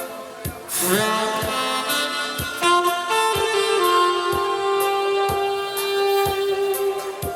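Trumpet playing a slow trot melody in long held notes over a backing track with a steady beat.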